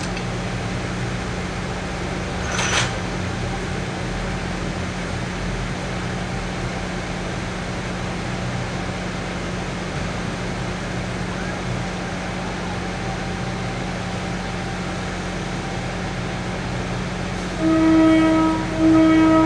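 Diesel locomotive of a MARC commuter train idling with a steady low hum, a brief hiss about three seconds in, then two horn blasts of about a second each near the end, the two-blast signal that the train is about to pull away.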